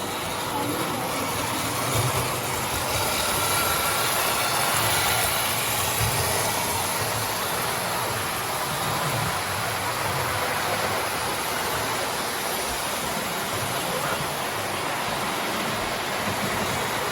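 Postwar Lionel O gauge steam locomotive running on tubular three-rail track: the steady rumble and whirr of its motor and wheels on the metal rails.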